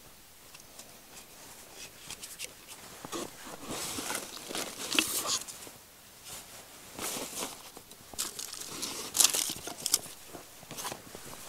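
Hands rummaging through a canvas tool roll lying on dry grass and leaves: irregular rustling and crackling of dry vegetation and canvas, with a few sharp clicks as wooden-handled chisels are picked up and handled.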